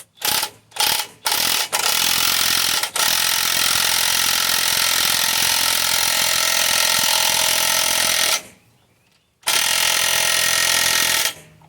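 Power wrench running on the threaded rod of a bushing press, pressing a new upper control arm bushing into a HMMWV control arm. It starts with a few short bursts, runs steadily for about six seconds, stops for about a second, then runs again for about two seconds.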